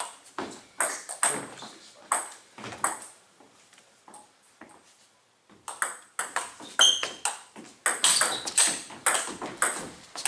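Table tennis rally: the celluloid ball ticking sharply off the bats and the table, about two hits a second. There is a pause of about two seconds in the middle before the next rally gets going and quickens.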